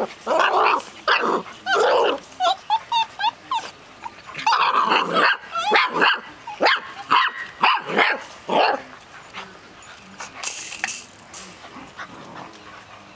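Six-week-old golden retriever puppies yipping, barking and whining in quick succession, with short wavering whimpers among them. The calls thin out after about nine seconds.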